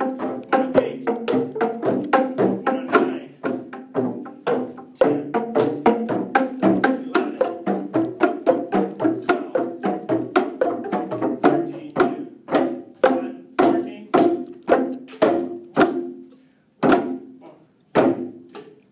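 Boomwhackers, tuned plastic percussion tubes, struck by a group in a steady rhythm, each hit a short hollow pitched tone. About two-thirds of the way through, the hits thin out into separate strikes, and near the end they slow to single hits about a second apart.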